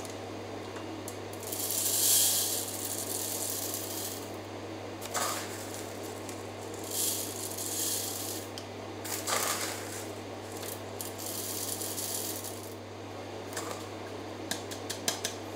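Dried bee pollen granules scooped from a plastic bag and poured through a plastic funnel into a glass jar: a dry, rattling pour in several separate bursts, the longest about two seconds in, with a few light clicks near the end.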